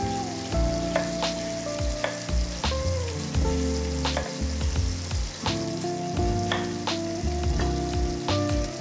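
Chef's knife cutting through onions on a wooden cutting board, the blade tapping the board sharply at irregular moments about once a second, over a steady sizzle of frying.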